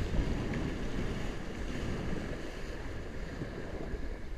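Wind buffeting the microphone of a kitesurfer's action camera, a steady low rumble, with sea water washing around.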